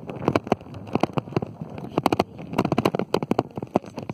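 Irregular crackling and knocking: handling noise from a phone held in the hand, fingers rubbing and tapping over its microphone.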